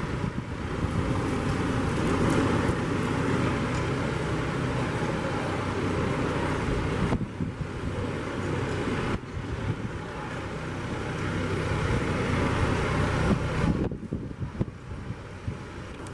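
John Deere utility tractor's diesel engine running as it tows a small flatbed trailer at low speed.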